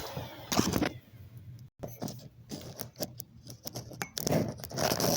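Bissell PowerForce Bagless upright vacuum cleaner running, then cutting off about a second in. Scattered clicks and light rattles of the machine being handled follow.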